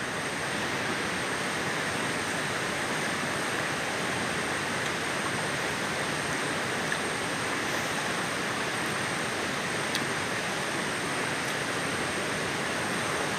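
Steady rushing of a river.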